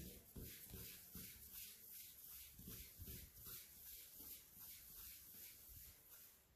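Faint rhythmic swishing of a ball of yeast dough being rounded under a cupped hand on a floured stainless-steel worktop, about three strokes a second, with soft low thumps of the dough against the steel.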